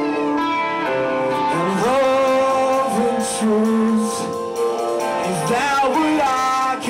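Hardcore punk band playing live: electric guitars, bass and drums, with a voice singing over them.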